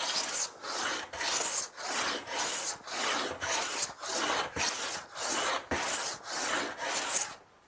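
Small metal hand plane taking shavings off the edge of a timber board in quick, short strokes, about two a second, trimming the edge down to a marked line. The strokes stop shortly before the end.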